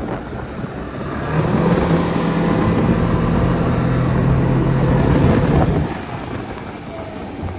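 Snowmobile engine running hard at speed, with a steady rushing hiss. The engine note climbs about a second in, holds loud and steady, then drops back about six seconds in as the throttle eases.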